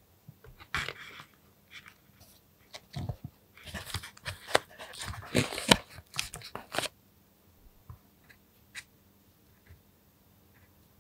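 Thin clear plastic mold tray crackling and clicking as fingers peel and press soft sweet dough out of its shapes. A dense run of crackles lasts about six seconds, followed by a few scattered ticks.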